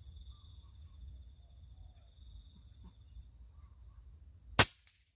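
Faint outdoor background with a steady high insect drone and a few brief chirps. About four and a half seconds in comes a single loud, sharp crack: the hunter's shot at a dove.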